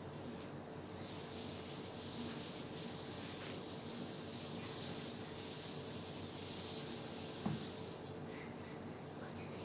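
Chalkboard eraser wiping chalk off a blackboard in repeated rubbing strokes. There is a single short knock shortly before the wiping stops.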